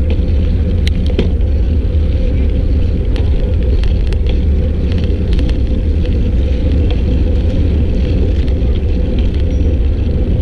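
Wind buffeting the microphone of a camera riding along on a moving bicycle: a steady low rumble, with a few faint light clicks and rattles.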